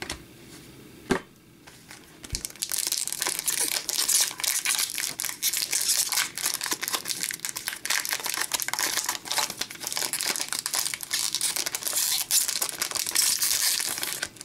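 Shiny foil wrapper of an Upper Deck hockey card pack crinkling as it is torn open and peeled back from the cards, a dense rustle of crackles from about two and a half seconds in. A single click comes about a second in.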